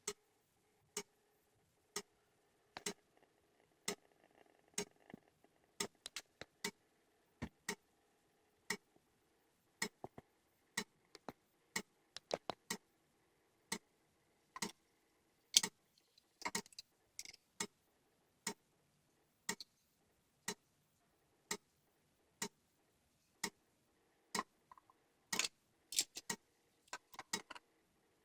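VIC-TIC Geiger counter, its power-supply relay ticking about once a second. Irregular clicks come in bunches around the middle and again near the end. The counter's clicking is faint, which the owner thinks may be due to aging capacitors or the early audio transistor.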